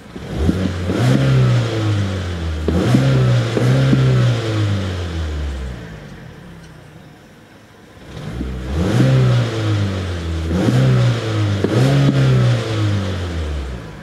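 2014 Mazda3 i's 2.0-litre Skyactiv-G four-cylinder free-revving while parked, heard from inside the cabin. It runs two series of about four quick blips each, climbing to the 4,000 rpm stationary rev limiter and dropping back toward idle about six seconds in and again near the end.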